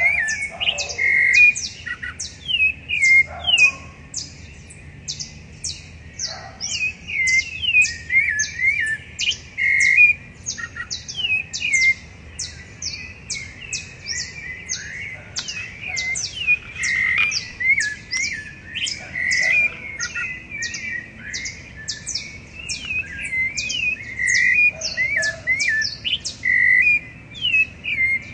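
Several rufous-bellied thrushes singing, with rich warbled phrases and a few held whistled notes, under a steady run of quick, high, thin notes several times a second.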